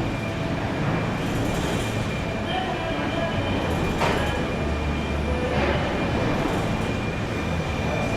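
Car-factory assembly-line machinery: a steady rumbling clatter with a faint high whine, and a couple of sharp knocks around the middle.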